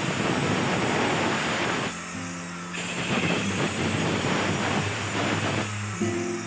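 Green bamboo being cut with a saw: two long bursts of rough cutting noise, each a few seconds, with a short break about two seconds in.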